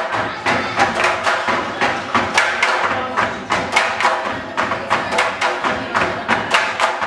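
Tinikling bamboo poles struck on a wooden floor and clapped together in a steady dance rhythm of sharp wooden knocks, about three a second.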